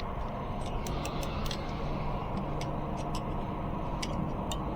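Irregular light metallic clicks and ticks as a bicycle spoke is worked through the hub flange of an e-bike wheel, over a steady low background hum.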